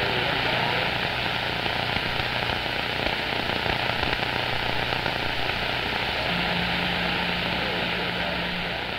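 CB radio receiver hissing with steady static from the speaker, no signal coming through, over a low steady hum. A second low tone starts about six seconds in and stops near the end.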